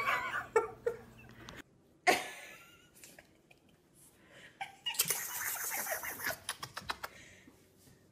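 Laughter, then after a short break a sudden breathy outburst and, about five seconds in, a longer stretch of loud hissing, breathy noises with clicks: a man making playful scary noises at a baby.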